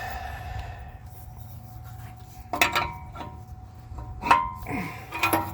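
Metal tools clinking and knocking under the car, three sharp metallic strikes with a short ring in the second half, the middle one the loudest, over a low steady hum.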